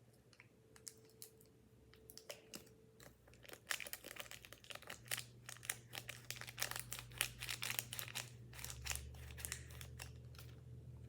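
Small plastic clicks and scraping of Popin' Cookin' candy mix being stirred in its plastic tray, sparse at first and then quick and steady from about four seconds in.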